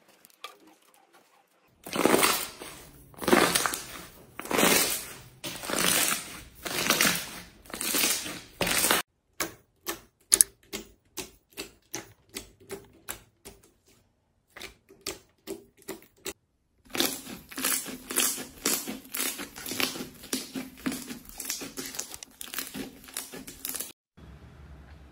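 Slime being worked by hand. First come slow squishing presses, about one every second, then a run of sharp popping clicks about twice a second, then dense crackling.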